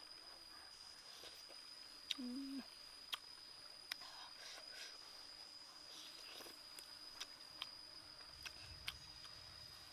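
An insect's steady high-pitched drone, with soft mouth clicks and smacks from chewing food scattered through it. A brief low hum about two seconds in.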